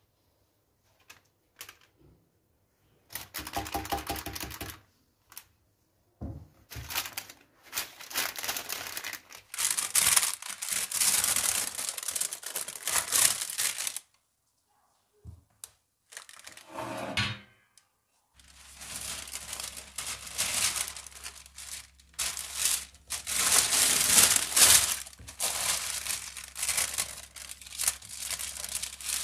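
Baking parchment and plastic cling film crinkling and rustling as they are handled around a baked sponge sheet, in several long bursts with short gaps. Brief scraping sounds come about three seconds in and again near seventeen seconds.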